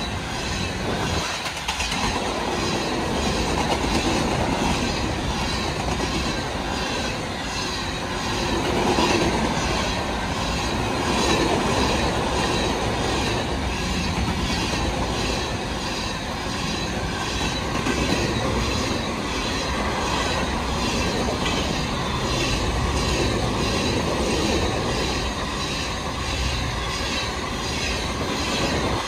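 A freight train of covered hopper cars rolling past close by: a steady rumble of steel wheels on rail, with a regular clickety-clack and a faint thin wheel squeal held throughout.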